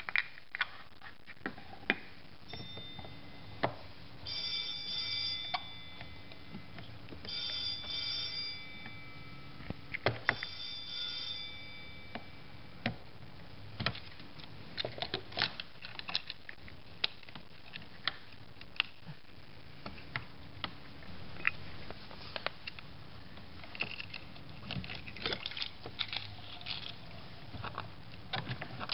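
Sharp plastic clicks and knocks of a hose coupling and caps being handled and fitted on a drain port. A fainter telephone bell rings three times, starting about four seconds in, each ring lasting a second or two.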